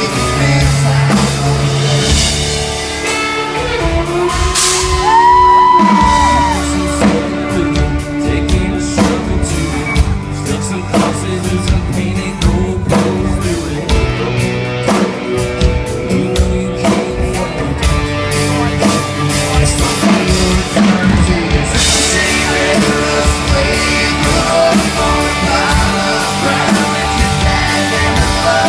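A live country-rock band playing in a large hall, with drums, amplified instruments and a lead singing voice.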